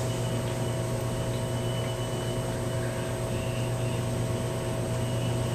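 Steady low hum with an even hiss underneath. No handling or clicking sounds stand out.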